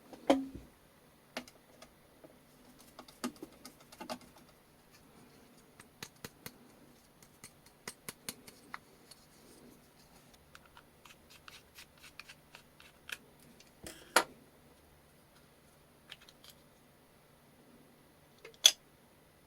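Scattered clicks and taps of small hand tools working on a transistor radio's circuit board, with a few sharper clicks, the loudest about fourteen and eighteen seconds in.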